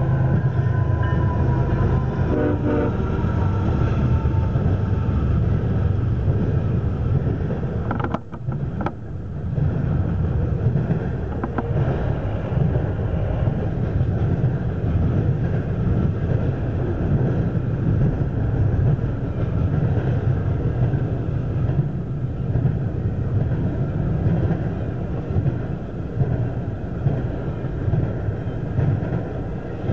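CSX double-stack intermodal freight passing close by behind two GE ES44AC diesel locomotives. The locomotive horn sounds for the first few seconds, dropping slightly in pitch as the engines go by. The steady rumble and wheel clatter of the container cars rolling past follows.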